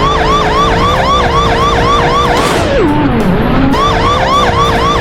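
Police car siren in a fast yelp, about four wails a second. About two and a half seconds in it winds down in pitch, then starts up again about a second later.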